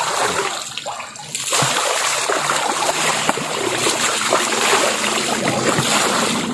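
Running water splashing steadily, with a short lull a little under a second in.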